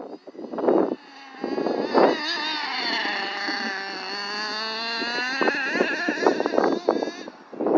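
FTX Carnage nitro RC truggy's small two-stroke glow engine running at high revs as it drives past, its pitch dipping and then rising again with the throttle, before cutting away near the end. A few short bursts of noise come in the first second.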